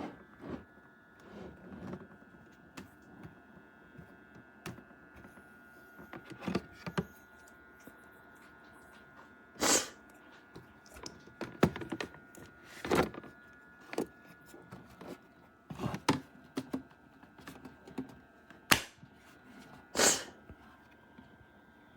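Irregular knocks, clicks and thumps of objects being handled, the louder ones spread through the second half, over a faint steady hum.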